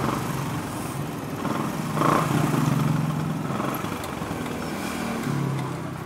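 A motorcycle engine running with a steady low hum that gets louder about two seconds in and again near the end.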